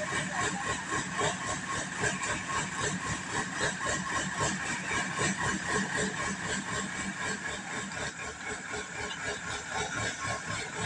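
Diesel engines of a backhoe loader and a dump truck running steadily as the backhoe pushes the truck from behind, with a steady high whine over the engine note. Slightly quieter after about eight seconds.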